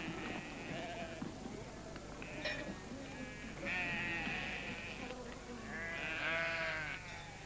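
Sheep bleating, about four separate quavering calls, the last and loudest about six seconds in.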